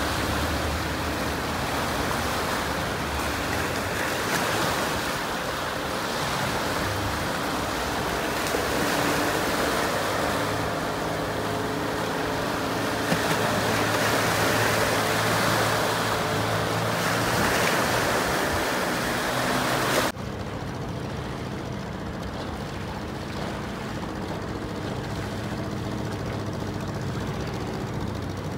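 Outboard motor of a small fishing raft running steadily over the water, under a rush of wind and water noise. About twenty seconds in the rushing noise drops away suddenly, leaving the motor's steady hum.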